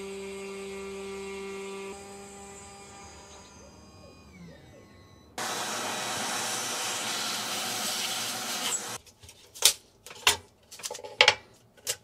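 Snapmaker A350T CNC spindle running with a steady whine at the end of a cut in plywood, then spinning down about two seconds in, its pitch falling. About five seconds in, a vacuum hose starts suddenly on the sawdust and runs with a loud rush until about nine seconds in. After that come sharp clicks and knocks as the cut plywood parts are handled on the machine bed.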